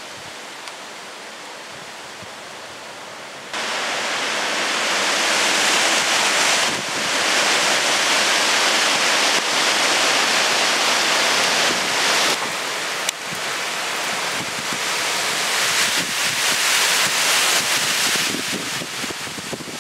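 Thunderstorm squall: strong wind gusting through trees and buffeting the microphone, with heavy rain. It is a steady rushing noise that jumps much louder about three and a half seconds in, then rises and falls with the gusts.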